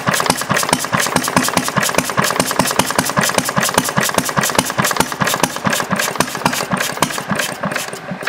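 Briggs & Stratton single-cylinder engine with a clear acrylic head, running slowly with an even, rapid firing beat while its air-fuel mixture is adjusted. Near the end it is choked back, fades and stalls.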